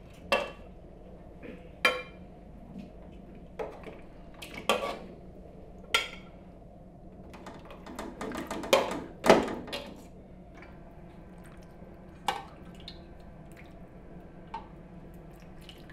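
A metal spoon clinking and scraping against an aluminium cooking pot and a china plate as potatoes and meat are served. There are sharp single clinks every second or two, with a busier run of knocks a little past the middle.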